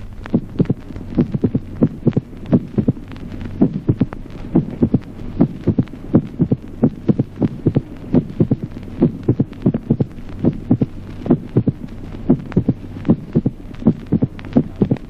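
Recorded heart sounds heard through a stethoscope: first and second heart sounds, each second sound followed after a long gap by a mitral opening snap, the beats coming at uneven intervals, the irregular rhythm of slow atrial fibrillation. A steady low hum runs under the beats.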